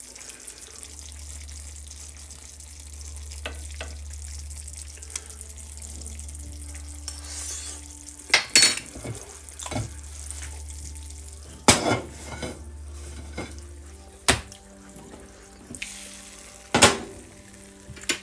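Pan of chicken and potato stew simmering on a gas stove, with a spoon and cookware clinking against the pan several times in the second half. A steady low hum runs under it and stops a few seconds before the end.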